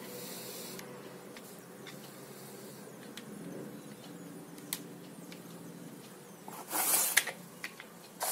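Handling of metal-framed aviator sunglasses: a few faint small clicks as the frame and temples are moved, then a short scuffing rustle with a sharp tap about seven seconds in as the glasses are set down on the surface. A faint steady low hum runs underneath.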